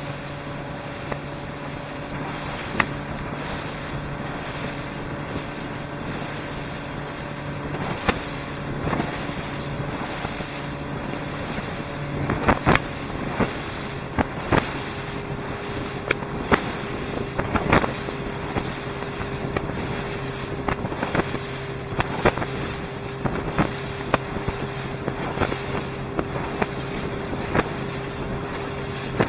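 Small motor pushing a kayak along with a steady hum, its pitch shifting about halfway through. Sharp knocks, more and more frequent in the second half, from the hull slapping through choppy water.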